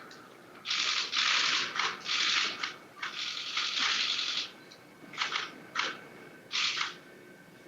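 Camera shutters firing in rapid continuous bursts: three long runs of dense clicking, then several short bursts.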